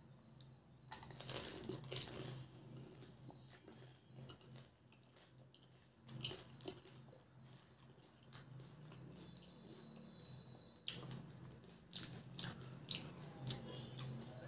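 Close-miked eating sounds of pani puri: the crisp hollow puri shells crack as they are bitten, then wet chewing, in bursts about a second in, around six seconds, and several times between eleven and thirteen seconds, over a faint steady low hum.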